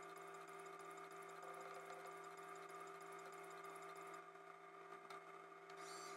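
Near silence: quiet room tone with a steady hum of several held tones. A faint click comes about five seconds in.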